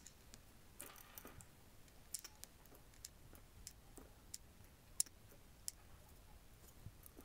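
Faint, irregular small clicks of 4 mm stainless steel balls being picked up with steel tweezers and set into the gap between the plastic races of a 3D-printed ball bearing, one click sharper about five seconds in.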